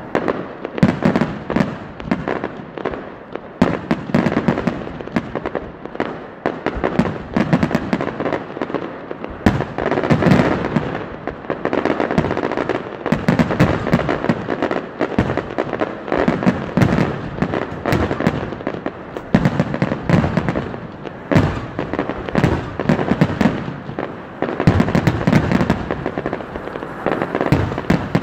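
Professional fireworks display: aerial shells bursting in a dense, unbroken barrage, many bangs a second overlapping, with louder clusters every few seconds.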